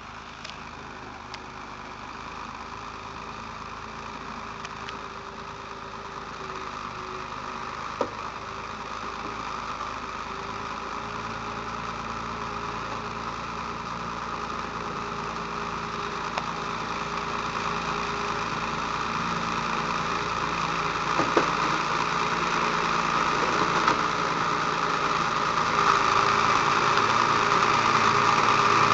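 Heavy truck's engine running steadily, growing gradually louder throughout, as a vehicle does when it draws nearer.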